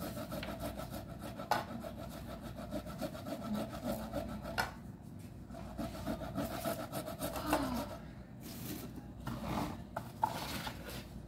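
Continuous rasping and rubbing from food being worked by hand at a kitchen counter, with a few sharp knocks.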